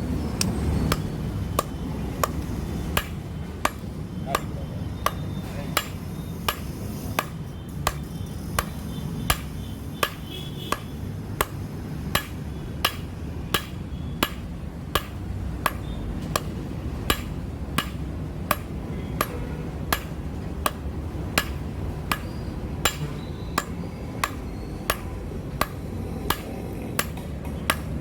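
Blacksmith's hammer striking steel on an anvil while forging, in a steady rhythm of about two blows a second over a steady low rumble.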